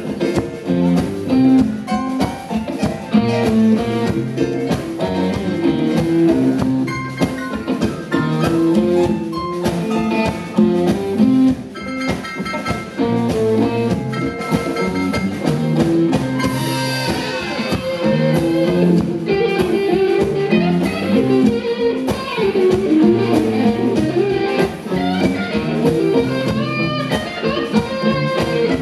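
Live band playing an instrumental stretch of a blues-rock boogie, with electric guitars to the fore over a drum kit.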